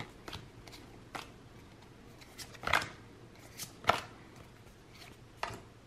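Pokémon trading cards being flipped through by hand, each card slid off the stack in turn: a handful of short, separate card snaps and flicks, two louder ones near the middle.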